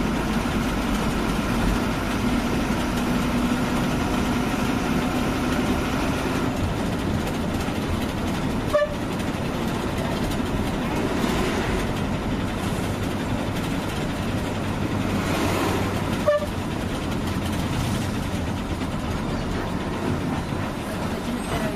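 A bus on the move: steady engine and road noise, with a faint whine over it for the first six seconds and two sharp clicks, about nine and sixteen seconds in.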